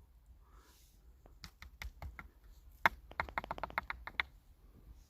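Light clicks and taps of small hard objects: a few scattered ones, then a quick run of them about three seconds in.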